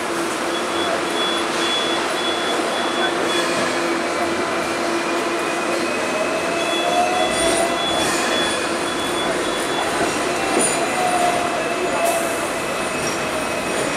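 Hong Kong double-decker electric tram running along the street, heard from its upper deck: a steady rumble of the car on its rails with a constant low whine, and a higher whine that rises and falls twice about halfway through.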